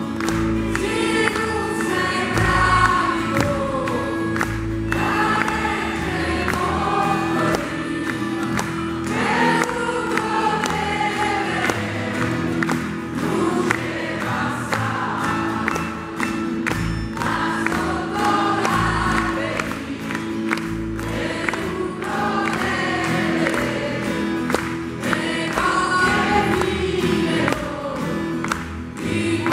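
Large mixed choir singing live, accompanied by a band of acoustic guitar, piano, double bass and drums, with a steady held low note under the voices.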